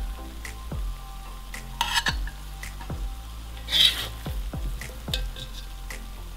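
Metal spatula scraping and scooping fried potatoes and cabbage in a kazan, with louder scrapes about two seconds in and near four seconds. The food sizzles faintly underneath.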